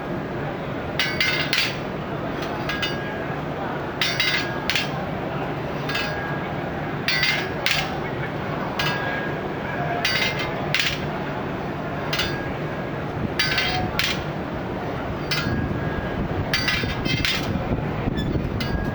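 Steel bars being struck, giving sharp metallic clinks with a brief ring. The clinks come mostly in pairs, about every three seconds, over a steady background rumble of street noise.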